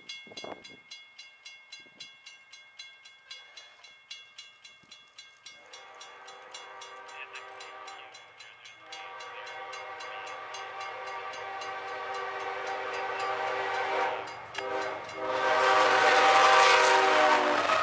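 Level-crossing warning bell ringing rapidly, then a freight locomotive's multi-chime air horn sounding long blasts with a short one near the end, the crossing signal as the train approaches. The horn grows louder, and in the last few seconds the locomotive's engine and wheels pass with a loud rush of noise.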